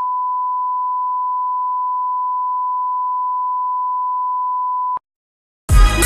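Steady single-pitch test tone of the kind that goes with TV colour bars, held for about five seconds and cutting off sharply. Music starts near the end.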